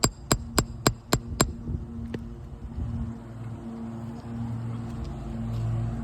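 Roofing hammer rapidly tapping a steel nail puller, six quick metallic strikes with a ringing edge, driving it under a shingle to pull the nails. The tapping stops about a second and a half in; a single faint tap follows, then only a steady low hum.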